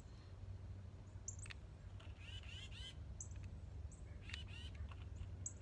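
Faint bird calls: a quick run of short rising chirps a little past two seconds in and another near four and a half seconds, with brief high peeps here and there, over a low steady rumble.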